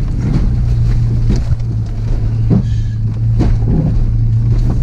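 Volkswagen Beetle's engine running steadily on an off-road trail, heard from inside the car, with a few short knocks and clunks from the car working over rough ground.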